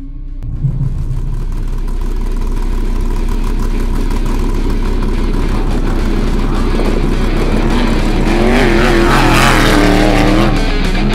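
Trophy truck driving hard off-road, its engine running at high revs. The engine comes in loudly within the first second, and its pitch wavers up and down in the last few seconds.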